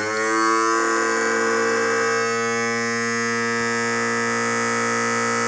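Power trim and tilt unit of a 1978 Johnson 115 HP outboard running, its electric motor and hydraulic pump giving a steady whine as it tilts the motor up. The pitch rises briefly as it starts, then holds steady.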